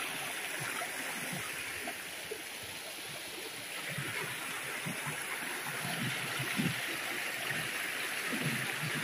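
Shallow river water rushing and splashing over rocks in a steady wash, briefly a little quieter about two seconds in, then full again.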